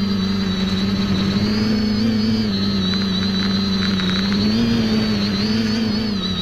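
X550AIOP quadcopter's electric motors and propellers buzzing steadily, heard from the camera mounted on the craft, the pitch wavering slightly up and down with throttle.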